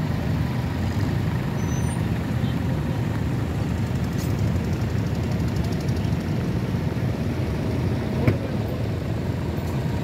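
Vintage tractor engines running steadily as they pull ploughs, with a short sharp knock a little past eight seconds in.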